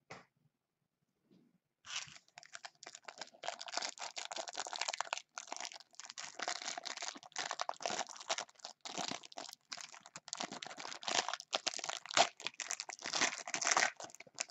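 Plastic wrapping of a trading-card pack being torn open and crinkled by hands, starting about two seconds in and going on in uneven rustling bursts.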